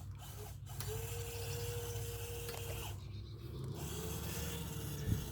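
Small electric RC winch motor and gearbox running in two spells of about two seconds each, with a one-second pause between them. Each spell is a steady whine.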